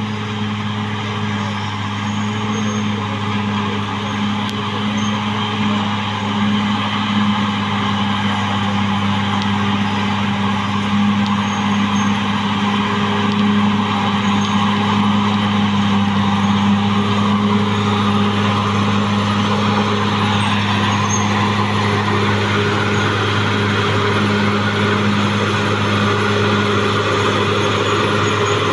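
Caterpillar D6R XL bulldozer's diesel engine running steadily at working revs, a deep drone over mechanical clatter that slowly grows a little louder.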